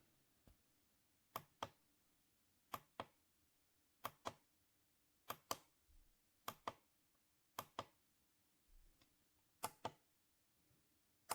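Faint paired plastic clicks of a button being pressed and released, about one press every second and a quarter, as on the sunrise alarm clock's control buttons.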